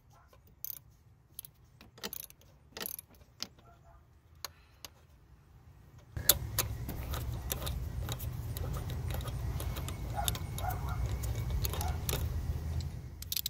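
Socket ratchet clicking as a hand loosens a 10 mm bolt on the air filter housing: single sharp metal clicks about a second apart, then quicker clicking. About six seconds in, a steady low rumble comes in underneath.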